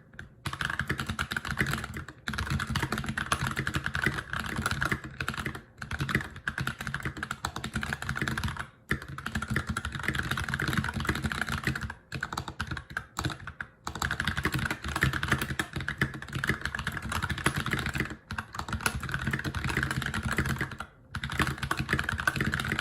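Fast, continuous typing on a GMMK TKL mechanical keyboard with Holy Panda tactile switches lubed with Tribosys 3203 and GMK keycaps: a dense run of key clacks broken by short pauses every few seconds.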